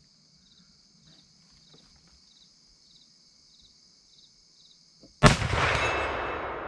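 .50-caliber CVA inline muzzleloader fired once about five seconds in: a single sharp report followed by a long fading echo. Crickets chirp steadily in the quiet before the shot.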